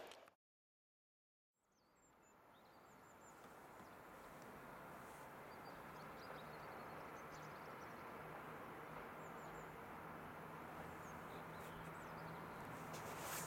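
A second of dead silence, then faint open-air ambience fading in, with small birds chirping and a faint steady low hum from a distant approaching locomotive.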